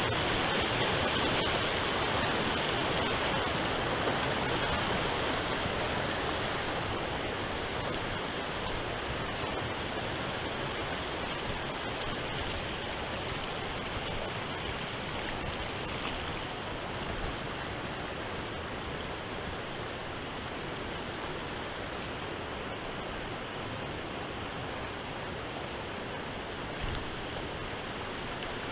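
Shallow river riffle rushing over cobbles: a steady rush of water that grows gradually a little softer through the first half.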